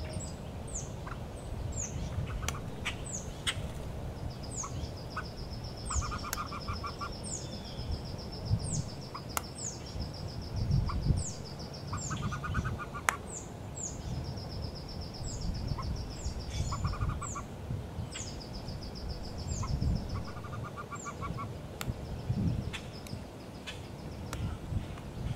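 Wood duck ducklings peeping inside the nest box: high, falling peeps about once a second, with a few short runs of rapid, lower clucking notes and a constant low rumble.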